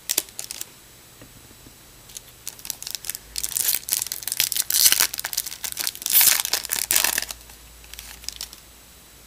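Trading card pack wrapper being torn open and crinkled: a brief crackle at the start, then several seconds of dense crinkling and tearing.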